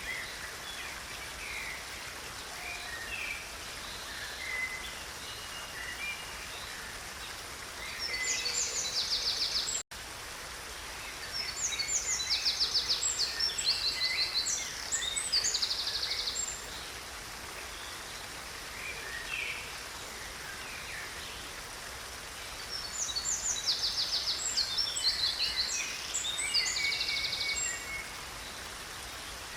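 Steady rush of a stream with songbirds calling over it, and three bouts of loud, rapid, high-pitched trilling song. The audio drops out for an instant about ten seconds in.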